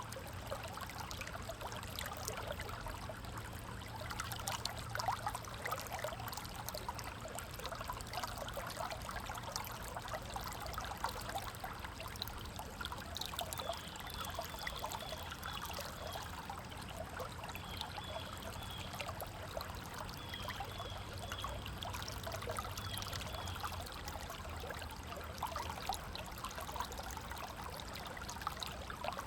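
River water flowing steadily, a continuous rushing and trickling with small splashes. Short runs of faint, high repeated notes come through several times in the middle.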